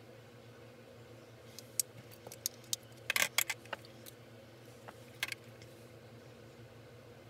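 Light clicks and clatter of makeup tools and a plastic compact being handled, put down and picked up: a scattered run of sharp clicks, densest about three seconds in, with a couple more about five seconds in. A faint steady hum underneath.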